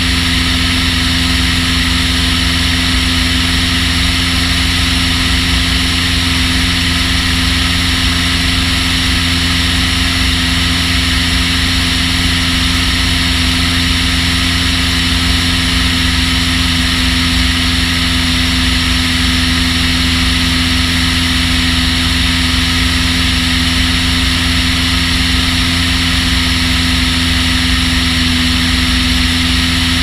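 Long-EZ canard aircraft's piston engine and pusher propeller running steadily at constant power, heard close up from a camera mounted on the airframe, with a steady low rumble beneath.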